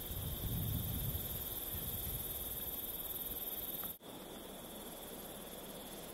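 Outdoor ambience of wind gusting against the microphone over a steady, high-pitched insect drone from the grass. The sound drops out at about four seconds, then goes on quieter with the insect drone still there.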